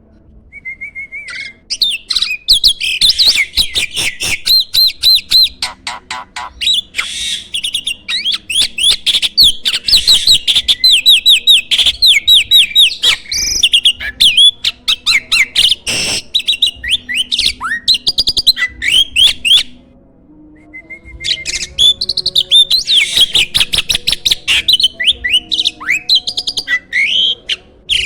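A jalak (starling) singing: fast, loud runs of sharp chirps and squawks mixed with whistled notes, with a short pause about twenty seconds in, after which it starts again with a held whistle.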